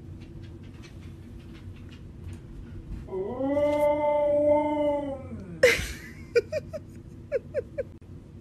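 Husky howling once: a long call that rises, holds for about two seconds and falls away. It is followed by a sharp yelp and then about six short yips.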